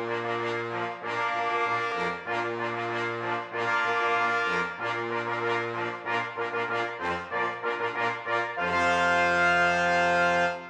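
Brass-led intro music, a series of sustained notes over a moving bass line, ending on one long held chord near the end.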